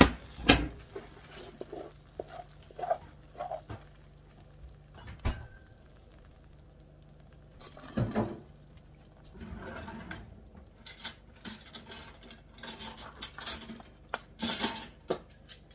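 Wooden spatula scraping and knocking in a nonstick frying pan while tofu scramble is dished out: scattered single knocks, a scrape about ten seconds in, and a busier run of clatter near the end.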